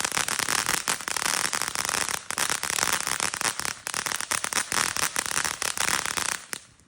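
TNT Fireworks 'Little Legend' consumer cake firing its crackling finale: a dense, unbroken mass of rapid crackling pops that cuts off abruptly near the end.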